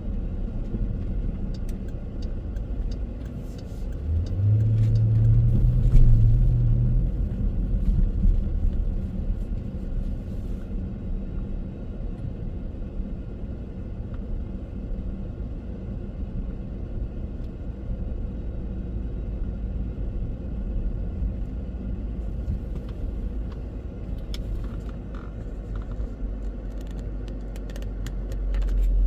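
Car driving on city streets: a steady low rumble of engine and road noise. About four seconds in a louder low hum rises in pitch for a few seconds, as the car picks up speed, then settles back.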